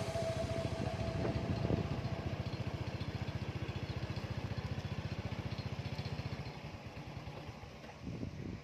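A small engine running with a rapid, even putter that slowly fades away.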